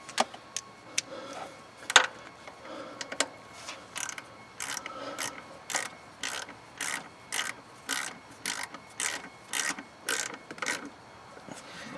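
A quarter-inch socket ratchet being worked on an idle air control valve bolt: a few loose clicks, then an even run of ratcheting strokes, about two a second, that stops about a second before the end.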